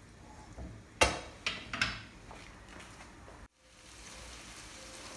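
Mussels frying in oil in a pan, with a few sharp knocks and scrapes of a spoon stirring them about a second in. The sound drops out briefly, then a steady low sizzle follows.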